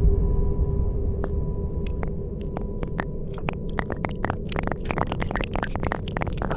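Trailer soundtrack sound design: a low rumbling drone fading away, overlaid by sharp clicks that start one at a time about a second in and come faster and faster, crowding together toward the end.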